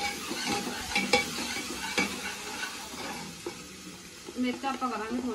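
Metal ladle stirring food in an open pressure cooker on a gas stove, scraping and clinking against the pot, with a few sharp knocks about one and two seconds in, over a steady sizzle from the cooking food.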